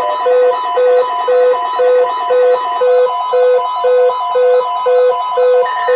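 Electronic alert tone: loud pitched beeps repeating about twice a second, alternating between two pitches over a fainter repeating warble, with a higher tone joining near the end.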